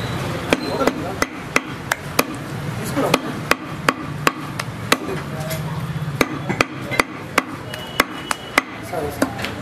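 Heavy butcher's knife chopping mutton on a wooden tree-stump block: a steady run of sharp knocks, about two to three a second.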